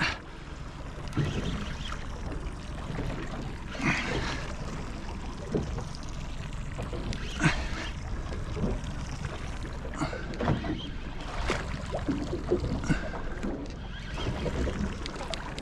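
Water lapping and splashing against the hull of a drifting boat, over a steady low rumble, with scattered short knocks and clicks.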